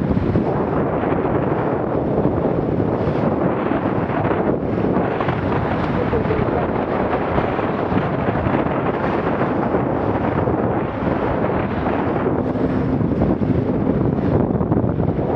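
Steady, loud wind buffeting the microphone of a camera on an E-scow under sail at about 11–12 knots, mixed with the rush of water along the hull.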